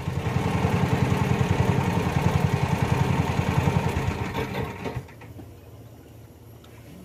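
Small petrol engine of a long-tail boat motor running with a rapid, even beat. About five seconds in it drops away to a faint low hum.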